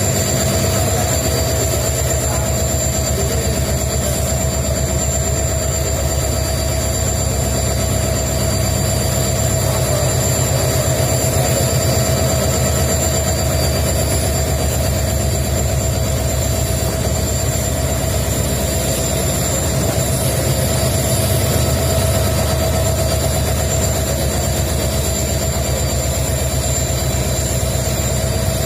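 Two EMD WDG4 (GT46MAC) diesel-electric locomotives idling steadily on their two-stroke V16 710 engines. It is a deep, even hum with a steady high whine over it.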